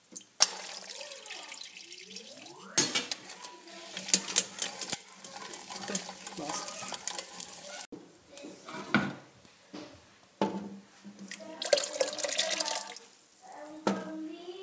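Water running and splashing, with metal pots, bowls and utensils clinking. The water starts suddenly just after the start, cuts off abruptly about halfway through, and there is a shorter second burst later on.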